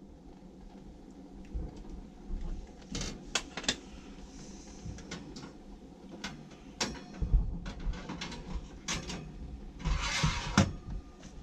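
Irregular knocks and clicks of things being handled, bunched about three seconds in and again past the middle, with a short burst of noise about ten seconds in.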